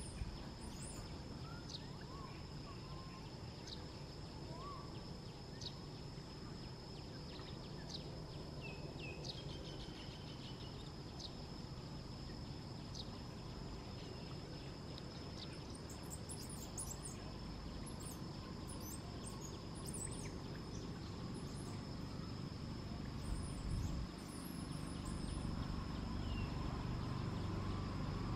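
Outdoor ambience: a steady noise bed with a constant high whine, scattered short high chirps, and a low rumble that grows over the last few seconds.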